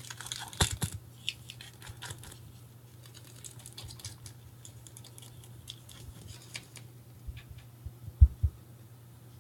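Trading cards being handled and flipped through, with a run of light clicks and rustles of card stock, densest in the first second. One dull knock about eight seconds in is the loudest sound.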